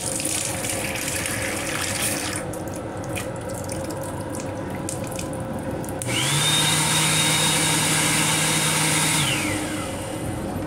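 Water from the lavatory faucet of a Metro-North M7 railcar runs into the sink for the first couple of seconds, followed by splashing. About six seconds in, the restroom's hand dryer starts suddenly: its blower motor whines up quickly to a steady high pitch over rushing air, then shuts off after about three seconds and winds down with a falling whine.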